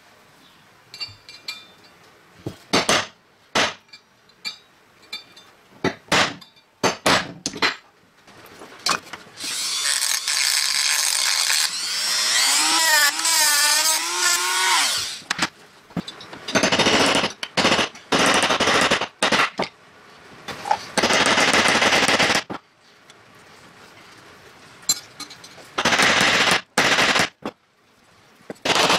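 Handheld rotary tool running in bursts against the steel tang of an old knife. One long run about a third of the way in has a whine that wavers as the bit loads. Several shorter bursts follow. Before it, sharp clicks and knocks of tools being handled on the bench.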